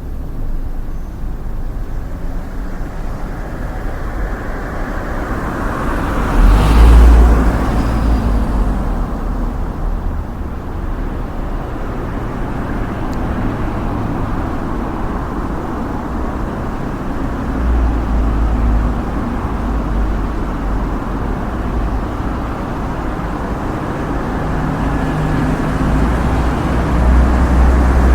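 Street traffic ambience: a steady rumble of road vehicles, with one vehicle passing close and loud about six seconds in, and further vehicles swelling past later on.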